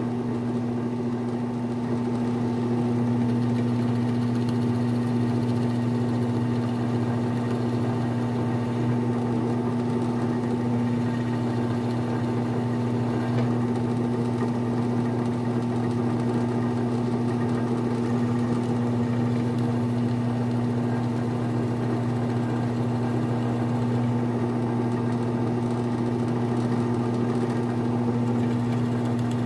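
Drill press motor running with a steady, even hum while a 1/2-inch Forstner bit bores a hole into a wooden crankbait blank.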